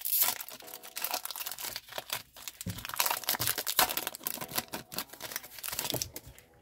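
Foil booster pack wrapper being torn open and crinkled in the hands: a dense crackle of crinkling, loudest as the tear begins, continuing as the cards are worked out of the pack.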